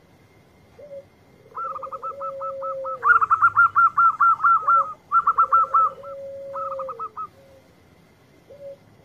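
Zebra dove (perkutut) cooing: a short low note, then a long wavering coo that falls at its end. This comes twice, with another short note near the end. Over it runs a rapid series of higher-pitched chirping notes, about five or six a second, loudest in the middle.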